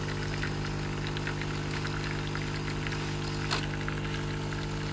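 Saeco espresso machine's water pump running with a steady hum as it pushes water through the brew unit, where a cleaning tablet is dissolving, and the tinted water runs out of the spout. A faint tick comes about three and a half seconds in.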